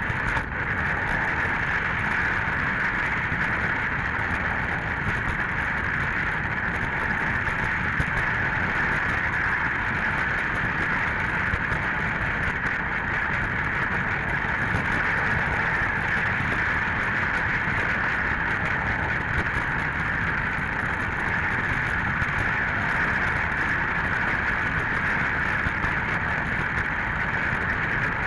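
Electric toy train's motor and gears running steadily as it travels along its plastic track, heard close up from a camera riding on the train: a constant whirring with a low rumble.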